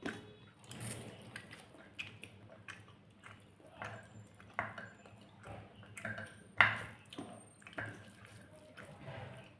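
Close, wet eating sounds: chewing and mouth smacks while eating rice with curry, a run of irregular short clicks with one louder smack about two-thirds of the way through.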